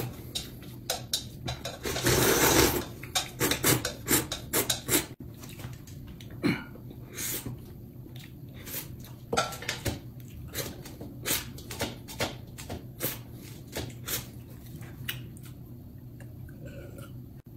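Mouth eating sounds: a loud slurp from the edge of a plate about two seconds in, then a run of wet chewing smacks and clicks of chopsticks against the plate that grow sparser toward the end.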